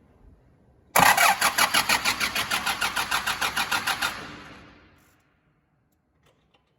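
2005 Nissan Navara D22 diesel engine cranking on the starter for about three seconds without firing, a fast even beat of compression strokes with a high-pitched whine, then stopping. The unusual high-pitched noise comes from the starter motor drawing very heavy current, whose interference on the crank angle sensor is what stops the engine from starting.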